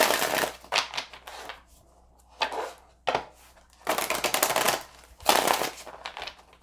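A deck of tarot cards being shuffled: about half a dozen short bursts of rapid flicking clicks with brief pauses between them.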